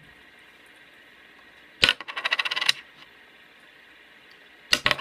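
A small metal fidget-spinner bearing flipped and landing on a table twice, about two seconds in and again near the end, each time hitting with a sharp click and then rattling and skittering for under a second before settling.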